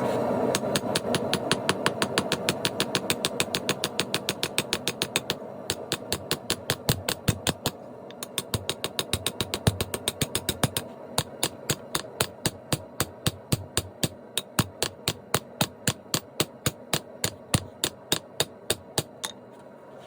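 Ball-peen hammer rapidly striking hot steel on an anvil, about five blows a second in runs with short pauses, drawing out the edge to forge a knife's clip point. A steady rushing noise runs underneath, strongest at the start and fading.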